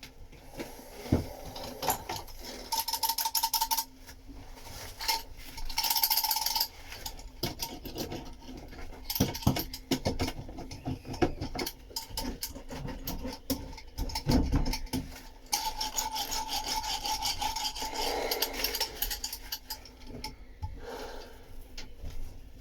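Metal fin roller rolled back and forth over resin-wetted fibreglass cloth to work out trapped air and excess resin, in repeated strokes of a second or two with clicks between them.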